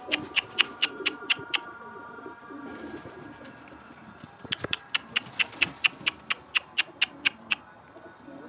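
Pigeons cooing softly, over two runs of sharp ticks at about four a second, one at the start and one from about halfway to near the end.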